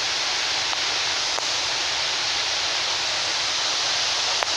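Steady, loud rush of falling water, with two faint ticks, one about a second and a half in and one near the end.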